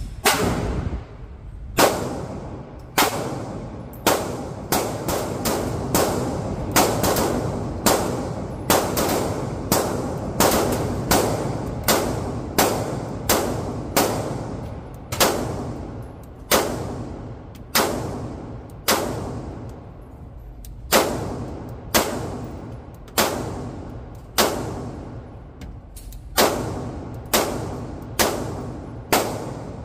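A semi-automatic pistol fired in a long string of about three dozen shots, each echoing off the walls of an indoor range. The shots come about two a second through the first half and slow to roughly one a second in the second half.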